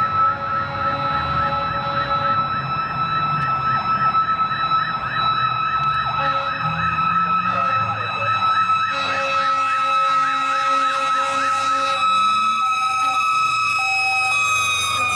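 Fire engine's electronic siren in a fast yelp, about four sweeps a second, over a steady tone. About nine seconds in the pattern changes to held tones that break off and restart as the truck approaches.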